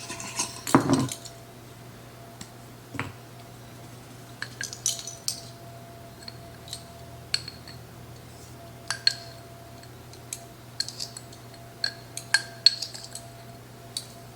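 A metal measuring spoon scooping spice and tapping and clinking against the rim of a container, in scattered light clicks, with one louder knock near the start.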